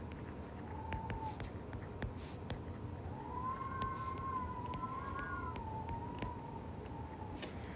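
A stylus tapping and scratching on a tablet screen while handwriting, in short clicks. A faint wavering high tone comes briefly about a second in and again for about four seconds from the middle.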